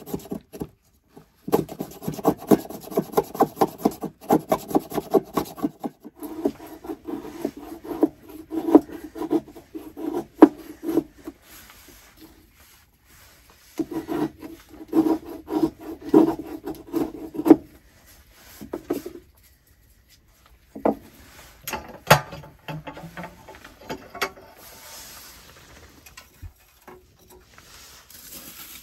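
A knife blade scraping and shaving dry wood into tinder, in bouts of quick repeated strokes with pauses between them. A few sharp wooden clicks come later, as the shavings and sticks are handled.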